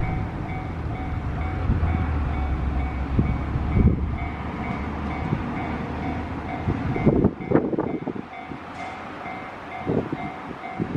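Freight train hauled by an EH500 electric locomotive rolling over a level crossing, a low rumble with wheels clacking over rail joints. The rumble drops away about seven seconds in, and a few clacks follow. Throughout, the crossing's warning bell rings in an even, repeating two-note clang.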